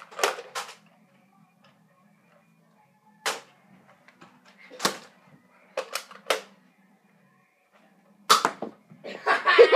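Nerf foam-dart blaster firing: about half a dozen short, sharp pops spaced a second or two apart, two close together about six seconds in. A child's voice shouts near the end.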